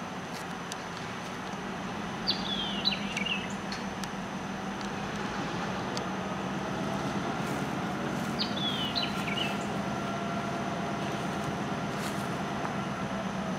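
Diesel locomotive engine running with a steady low drone as the train moves slowly. Twice a bird gives a short series of descending chirps, and a few light clicks sound.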